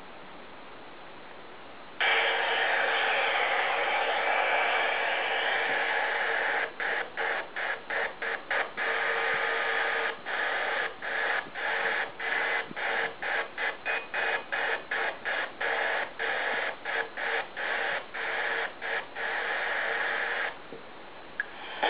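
FM radio static from a bicycle mp3/FM radio speaker unit: a steady hiss between stations. It starts suddenly about two seconds in. From about a third of the way through it cuts out briefly over and over, roughly twice a second, as the radio is tuned. It stops suddenly near the end.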